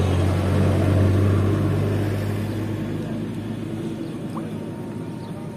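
A motor engine's low drone, loudest about a second in and then fading away.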